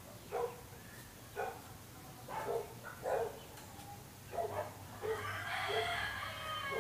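A dog barking in short, repeated barks, roughly one a second, with a busier run of calls in the last couple of seconds.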